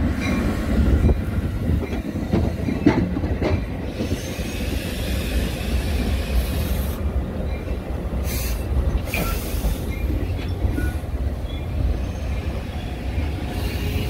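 Metra bilevel commuter cars rolling past on the track: a steady low rumble of wheels on rail with clatter over the joints and a few brief high-pitched wheel squeals.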